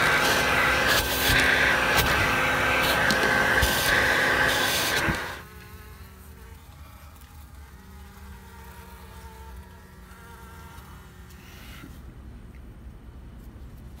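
A bee vacuum runs with a steady whine, then is switched off about five seconds in and winds down quickly. Honey bees are left buzzing in a quieter, even hum.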